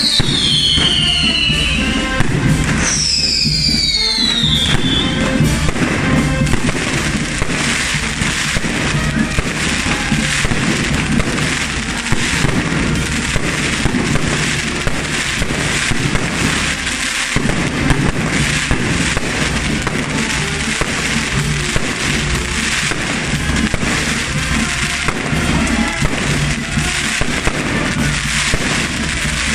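Dense, continuous crackling of firecrackers and fireworks fountains set off on a hoguera bonfire monument as it is burned. A few falling whistles sound in the first four seconds or so.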